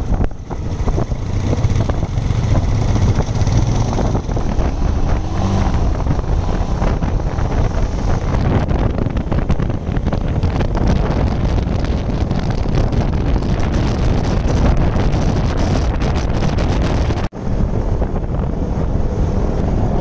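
Motorcycles riding along a road: engine noise under heavy wind rush on the microphone, steady and loud, with one sudden brief break near the end.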